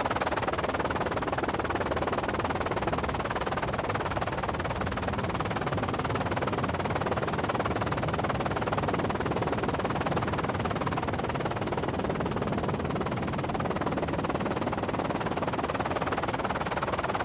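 Steady, unbroken rushing noise of engines and wind.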